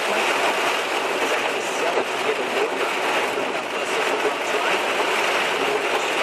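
Heavy rain on a moving car and its tyres running through standing water on the road: a steady wash of noise heard from inside the car.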